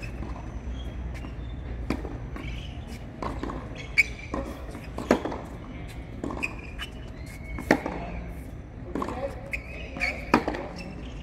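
Tennis groundstroke rally on a hard court: sharp pops of the ball coming off the racket strings every couple of seconds, the loudest about 4, 5, 7.5 and 10 seconds in, with quieter knocks in between. A steady low rumble lies underneath.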